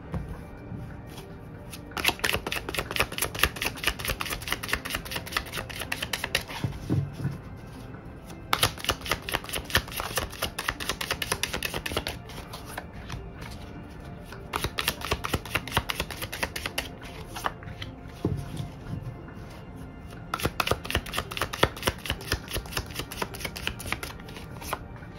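Tarot cards being shuffled by hand: about five runs of rapid rustling card flicks, each a few seconds long with short pauses between, over soft background music.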